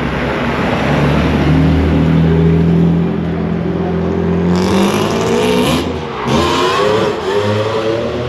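Mercedes-Benz S600's V12 engine running steadily, then revved twice, its pitch rising and falling.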